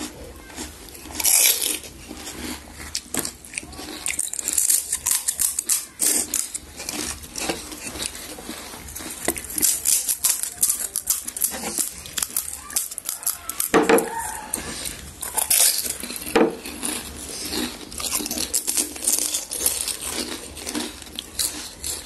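Crisp fried panipuri shells crunching and crackling as they are bitten and chewed, in irregular bursts.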